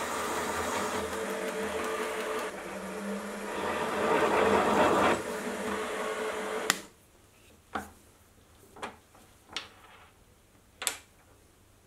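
A milling machine's spindle runs while a drill cuts a hole through a metal block held in the machine vise. The cutting grows louder about four seconds in and cuts off suddenly near seven seconds. Four short, sharp clicks follow as the drilled block is handled and lifted from the vise.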